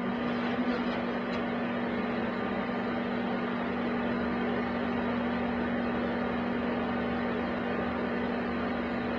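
Microwave oven running while it heats a bar of soap: a steady hum over an even whirring noise.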